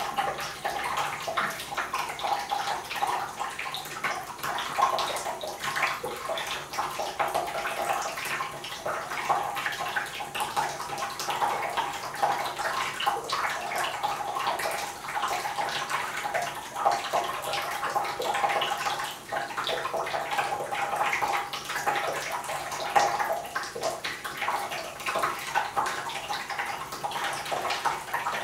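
Water running from the tap into a bathtub: a steady splashing rush.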